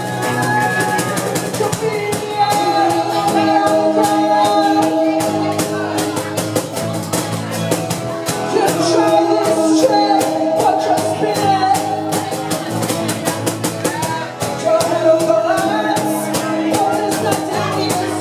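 Live acoustic band playing a song: strummed acoustic guitars, with lead and harmony vocals singing over a steady percussive beat.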